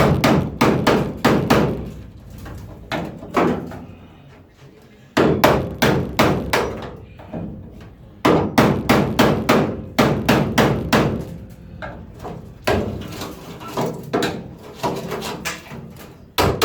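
Hammer driving a chisel into car-body sheet steel, in several runs of quick, sharp blows, about four a second, with short pauses between runs.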